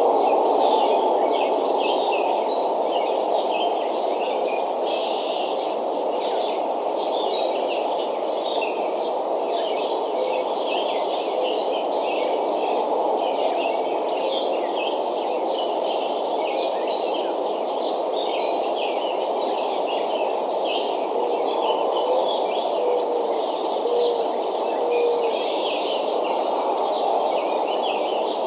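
Many short, overlapping bird chirps, high-pitched and scattered throughout, over a steady rushing background noise.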